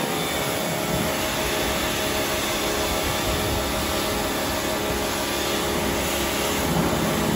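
Bosch Aquatak 125 electric pressure washer running steadily, its motor and pump humming under the hiss of water spraying from the lance in the spread-out fan mode onto car bodywork.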